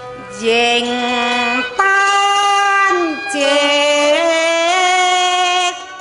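A woman singing Cantonese opera-style song (yuequ) in long held notes, their pitch wavering, with a short downward slide about three seconds in.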